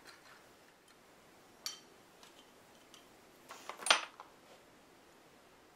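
Hand tools and small parts of a radio-control rock crawler kit being handled while the shock mounts are fitted to the chassis plates: a single light click about a second and a half in, then a short cluster of clicks and clatter around four seconds in.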